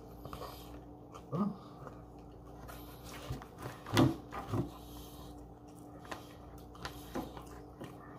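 A person eating a burger with the mouth close to the microphone: chewing, with a few short low hums or grunts that fall in pitch, about 1.5 seconds in and around 4 seconds in, the loudest near 4 seconds. A faint steady hum runs underneath.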